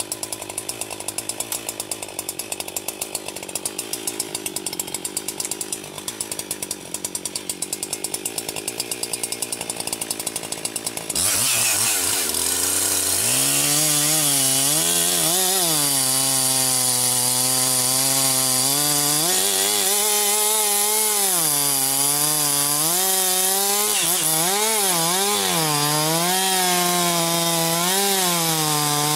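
Chainsaw idling with a fast pulsing. About eleven seconds in it is opened up to full throttle and cuts into wood, its engine pitch dipping and rising again and again as it works through the cut.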